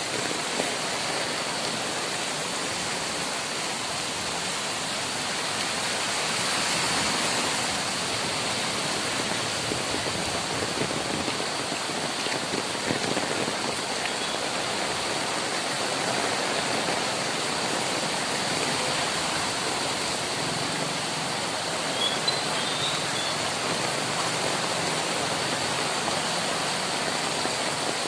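Heavy rain pouring down, with rainwater running: a steady, dense hiss.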